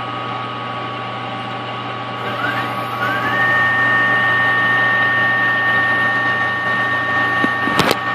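Microkinetics 1236 CNC lathe running, with a steady machine hum and whine. About two and a half seconds in, a whine rises in pitch, then holds steady as the sound grows louder. A few sharp clicks come near the end.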